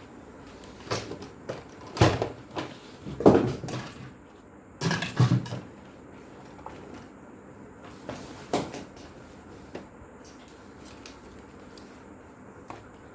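Electric typewriter mechanism clacking and clunking at irregular intervals, a handful of louder clunks among lighter ticks.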